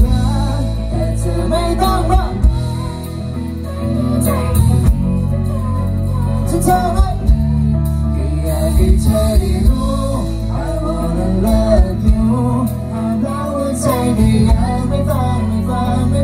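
Live band playing on an amplified stage: singing over drums and guitar, with a strong steady low end.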